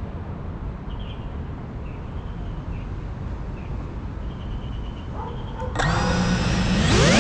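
Low outdoor rumble with a few faint high chirps, then about six seconds in an FPV quadcopter's brushless motors start spinning with a sudden whine of several tones. Near the end the whine rises sharply in pitch as the throttle is opened for takeoff.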